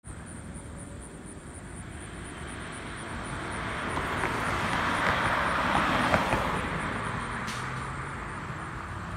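A car passing by on the road: its tyre and engine noise builds to a peak about five to six seconds in, then fades away.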